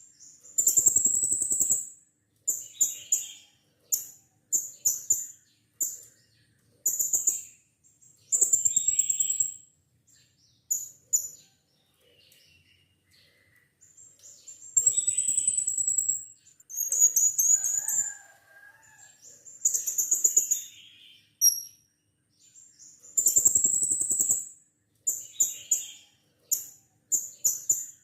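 Blue-crowned hanging parrot (serindit) calling: repeated shrill, very high-pitched buzzy trills, each a second or two long, with short pauses between.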